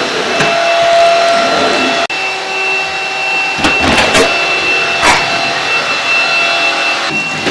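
Cordless stick vacuum cleaner running with a steady high motor whine. It drops out for a moment about two seconds in and comes back slightly higher in pitch. A few knocks come in the middle as it is pushed about.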